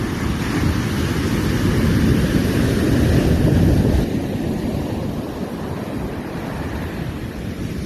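Sea surf washing in, with wind rumbling on the microphone. The surge builds over the first few seconds, then falls away suddenly about halfway through to a lower wash.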